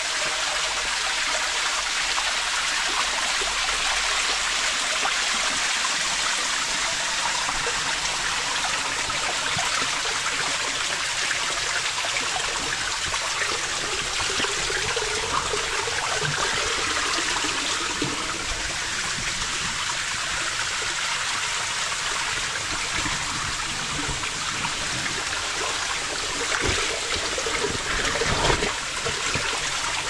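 Steady rush of running and falling water in a limestone cave, close to the microphone, with a few short bumps near the end.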